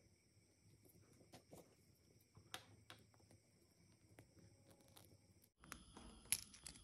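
Near silence with faint scattered small clicks, and a sharper click near the end: a metal watch spring bar and resin strap being handled and seated on a watch case with a spring bar tool.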